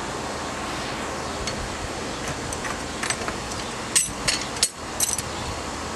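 A few light metallic clicks and knocks from a bearing puller being handled and set into a boat's gimbal bearing. They fall mostly in the second half, over a steady background hum.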